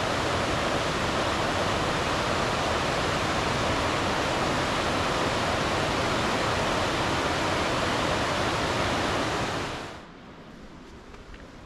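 The Tarn river rushing, a loud steady roar of flowing water. It drops away sharply about ten seconds in, leaving a faint background with light ticks.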